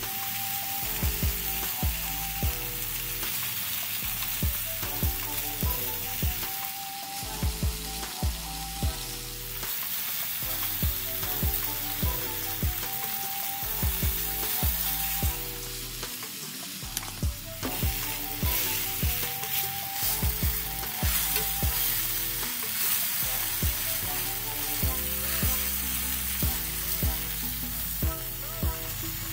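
Sweet Palermo peppers sizzling steadily in a hot cast-iron grill pan, heard together with background music that has a bass line and a simple repeating melody.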